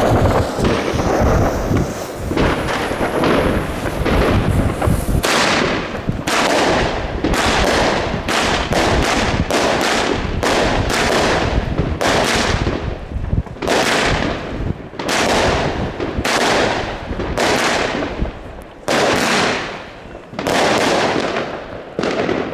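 A Broekhoff Crown Collection 16-shot, 20 mm firework cake firing. After a few seconds of dense rushing noise, it fires about five seconds in and keeps firing: a steady series of sharp shots and aerial bursts, more than one a second, each trailing off.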